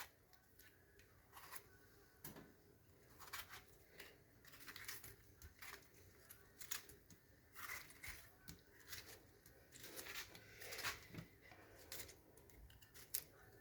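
Near silence with faint, scattered clicks and rustles from handling food and utensils during kitchen preparation.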